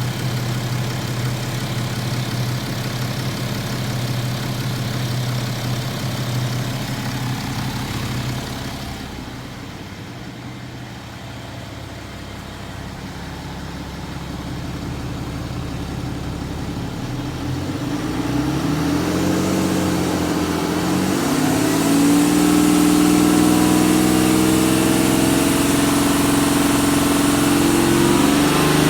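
BMW N57D30 3.0-litre straight-six diesel running steadily, quieter from about eight seconds in, then revved up from around eighteen seconds and held at higher revs. At raised revs the owner hears a misfire-like tapping, even though the chains, injectors and crankshaft pulley are new and the sound stays the same without the accessory belt.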